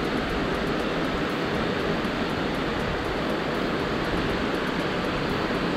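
Steady rush of water pouring over a low concrete spillway.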